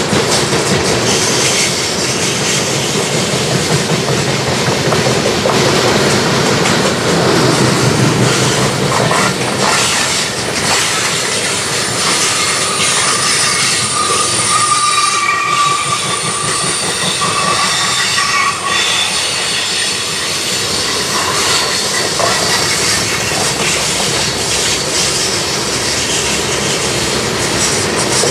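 Freight train cars rolling past on a curve: a steady rumble and clatter of steel wheels on the rails. Around the middle, high-pitched wheel squeal rises for several seconds as the wheel flanges grind against the curved rail.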